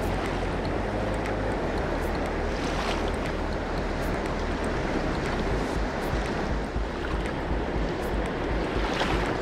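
Fast-flowing river rushing steadily, with wind rumbling on the microphone.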